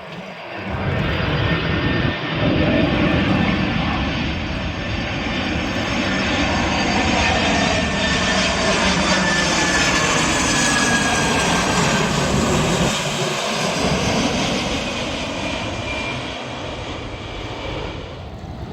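Jet airliner passing low overhead: its engine noise swells about a second in, holds loud with a whine gliding down in pitch, and eases off near the end.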